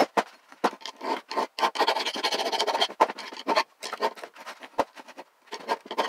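Flat hand file rasping back and forth over a steel go-kart spindle in a run of uneven strokes with short pauses between them. It is taking down a rough spot so the bearing will seat straight on the spindle.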